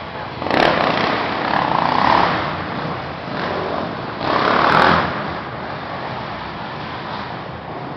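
Racing quad (ATV) engine revving hard and easing off as it runs the dirt track, with louder surges about half a second in and again around four to five seconds in.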